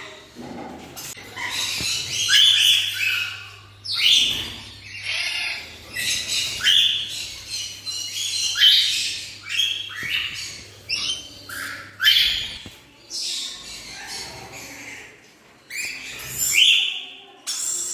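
Black-winged lory calling: a run of short, high squawks, about one a second, many rising in pitch.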